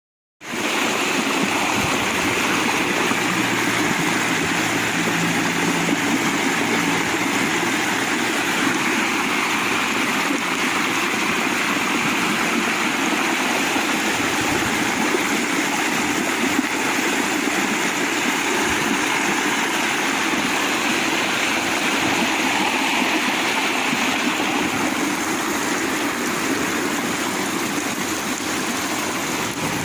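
Steady, loud rush of water in heavy rain, a continuous noise with no let-up.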